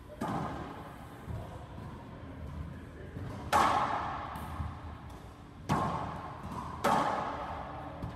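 Racquetball in play: sharp smacks of the ball off racquets and the court walls, echoing in the enclosed court. There are five hits, one fainter, and the loudest comes about three and a half seconds in.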